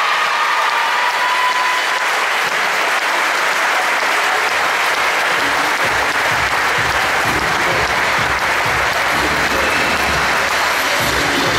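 Audience applauding steadily at the end of a baton-twirling routine, as the last notes of its music fade out in the first second or two.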